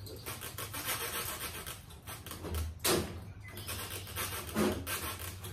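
A bunch of keys jingling and clicking as they are handled and tried in the lock of a steel rolling tool cabinet, with a couple of louder metal knocks.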